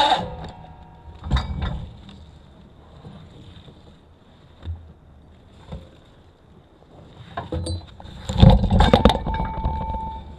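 Scattered knocks and clunks of a chained log on a winch cable as it swings and is lowered onto a forestry trailer's log load, with a louder cluster of knocks and rattles about eight seconds in. A short steady whine follows near the end.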